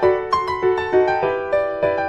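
Background piano music: a gentle melody of single struck notes, about three or four a second, each ringing out before the next.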